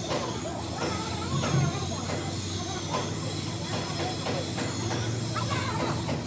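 Workshop noise: a steady machine hum and hiss with irregular short knocks and clanks.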